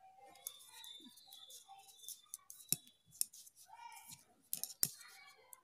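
Knitting needles clicking and scraping against each other as stitches are worked in wool, in small irregular clicks, with sharper ones about two and three-quarter seconds in and just before five seconds.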